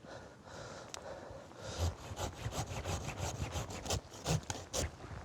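Silky PocketBoy folding hand saw cutting through a tree branch in quick back-and-forth strokes, about four a second. The strokes start about two seconds in and run until near the end.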